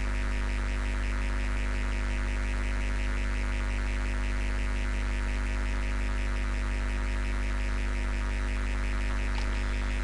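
Steady electrical mains hum with a fast, even pulsing above it.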